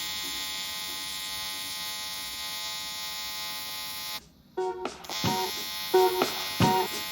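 An electric welding arc buzzes steadily with many overtones, likely while the flange and clamp parts are welded onto the aluminium intake manifold. It cuts off about four seconds in. After that comes a run of short, separate buzzes about half a second apart, as the arc is struck again and again.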